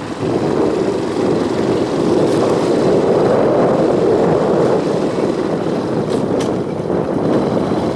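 A vehicle travelling along a rough dirt road: a steady, unpitched running noise, with a few light knocks around the middle and near the end.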